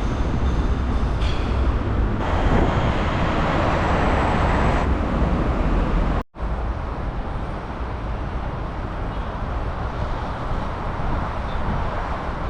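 Steady outdoor traffic noise, a dense low rumble without speech, that cuts out for an instant about six seconds in and resumes slightly quieter.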